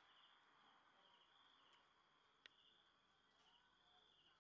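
Faint, high-pitched insect chirping in a pattern that repeats about once a second, switching between a buzzy trill and a steady note. A single sharp click about two and a half seconds in.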